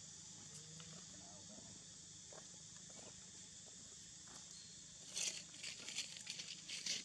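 Faint rustling and scratching in a quick run of short bursts starting about five seconds in, over a steady high-pitched hiss.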